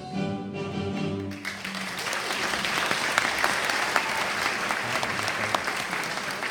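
A musical number ends on a held chord about a second and a half in, and an audience breaks into applause that carries on for the rest of the time.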